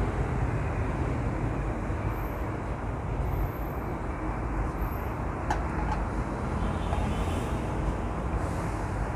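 Steady low background rumble, with a couple of faint light clicks a little past the middle.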